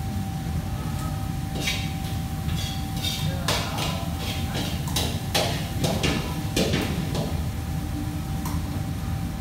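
Kitchen clatter: a run of short knocks and clinks of utensils and dishes, busiest from about one and a half to seven seconds in, over a steady low hum and a thin steady tone.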